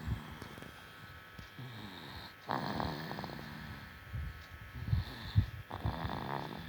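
A tired-out baby snoring in its sleep, with a rough, rattly breath every second or so. The loudest breath comes about two and a half seconds in.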